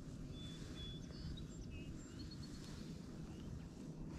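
Several short, high bird chirps over a steady low rumble of wind on the microphone.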